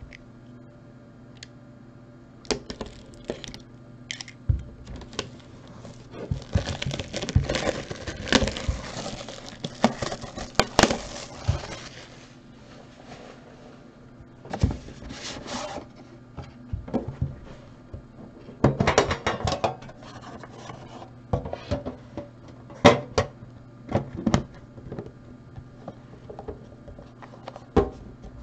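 A sealed trading-card hobby box being unwrapped and opened: plastic shrink-wrap crinkles and tears for several seconds, then cardboard is handled with scattered taps and knocks as the box is opened and its inner box is lifted out.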